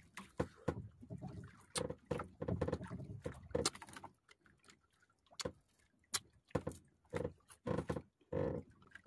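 A man eating grilled fish with his fingers: chewing with his mouth open, lip smacks, and small irregular clicks as he tears the flesh apart.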